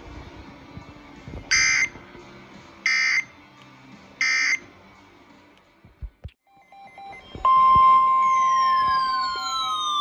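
NOAA Weather Radio EAS tones: three short bursts of SAME end-of-message data, evenly spaced about a second and a half apart. About seven seconds in, a loud steady alarm tone near 1 kHz starts, the 1050 Hz weather-radio warning alarm, with two tones sliding steadily downward over it near the end.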